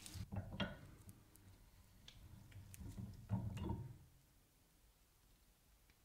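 Gloved hands handling and fitting the metal parts of a restored tap wrench: light clicks and knocks in the first second, a few single ticks, then a louder cluster of knocks about three and a half seconds in.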